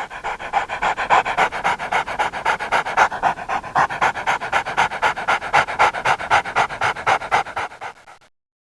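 A dog panting rapidly in an even rhythm of several breaths a second, fading out near the end.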